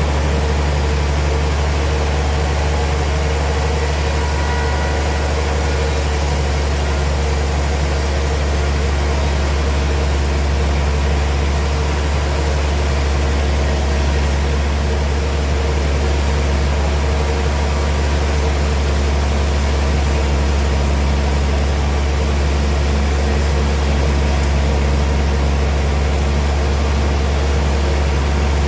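Sawmill machinery running steadily: a loud, unchanging low hum with several steady tones over an even hiss, with no cuts or impacts standing out.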